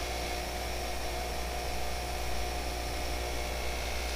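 Bench grinder motor running with a steady hum while a rubber-bonded Cratex abrasive wheel polishes the flat of a steel knife blade held against it.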